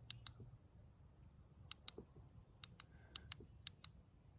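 Feyachi WL25 tactical flashlight's switch being clicked repeatedly, sharp clicks in quick pairs about five times as the light is cycled through its modes.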